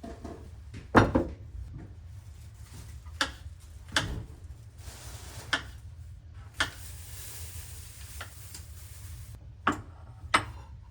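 Pots, dishes and utensils knocking and clinking in a series of about seven sharp, irregular knocks, the loudest about a second in, with a hiss for a few seconds in the middle.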